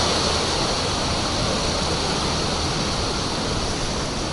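Ocean surf washing and churning against the rocks of a breakwater: a steady rushing hiss of foaming water.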